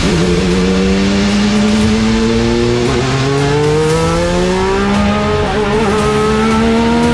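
Honda CR-V Hybrid Racer's IndyCar-derived race engine accelerating hard through the gears. Its pitch climbs steadily and drops at upshifts about three and five seconds in.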